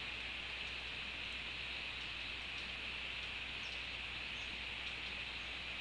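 Steady outdoor hiss of a wet tropical forest, even and unchanging, with a few faint high ticks and chirps scattered through it.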